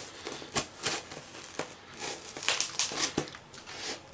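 Shiny black tape wrapped around a small cardboard box crinkling and crackling in irregular bursts as fingers handle it and pick at it, the start of getting a heavily taped parcel open.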